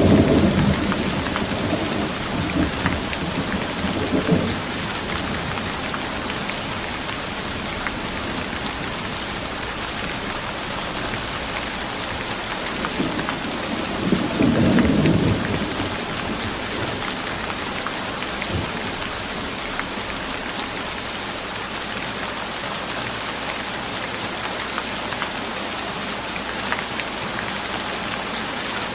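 Steady rain hissing, with rumbles of thunder: one fading just at the start, a short one about four seconds in, and a longer roll about halfway through.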